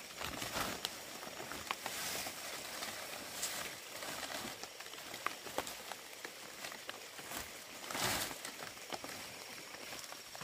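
Dried palm leaves rustling and crackling as they are handled and stacked, with scattered crisp clicks and several louder rustles, the loudest about eight seconds in.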